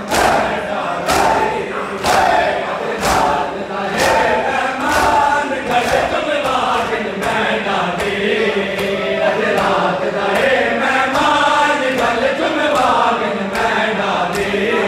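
Many men's voices chanting a mourning lament (noha) together while beating their chests with open hands; the slaps land in unison about once a second.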